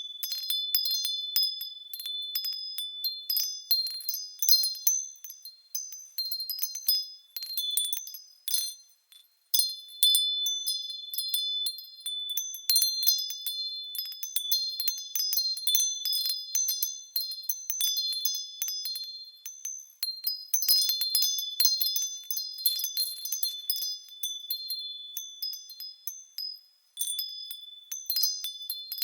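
Japanese fūrin wind chime tinkling in the breeze, its clapper striking again and again at an irregular pace with high, clear ringing tones. There are brief lulls about nine seconds in and again near the end.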